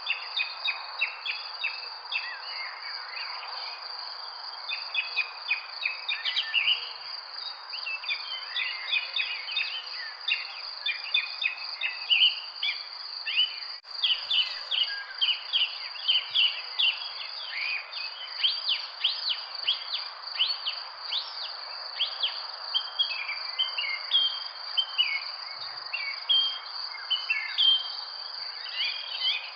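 Birds in a park chirping and calling over and over, with many short, quick chirps, over a steady high-pitched insect drone and a faint even background hiss.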